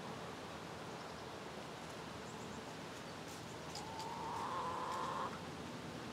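Outdoor ambience with a steady hiss; a hen gives one drawn-out call lasting about a second and a half, starting about four seconds in.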